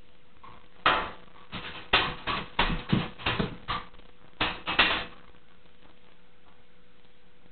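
Shetland sheepdogs pawing and digging at the bottom edge of a kitchen stove for kibble stuck underneath: a run of about a dozen rough scrapes and knocks, starting about a second in and lasting about four seconds.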